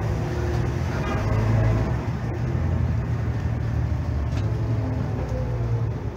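Heuliez GX217 CNG city bus with its Volvo natural-gas engine, heard from inside while driving: a steady deep engine drone, its pitch sliding down over the last couple of seconds as the revs drop.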